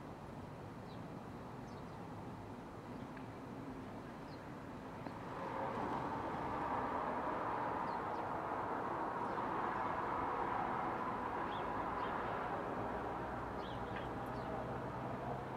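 Road traffic noise, a steady rush that swells about five seconds in and stays up for most of the rest, with faint short bird chirps scattered throughout.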